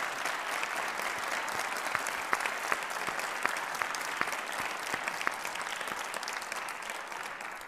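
Audience applauding: many hands clapping in a dense, steady patter that thins out a little near the end.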